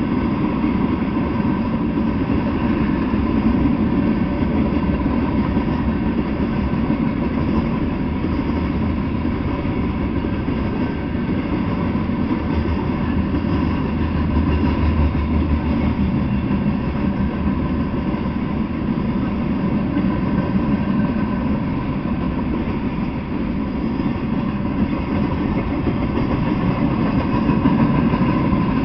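Mixed freight train of tank cars, covered hoppers and boxcars rolling past: a steady, unbroken rumble of steel wheels on the rails, with a faint steady hum riding over it.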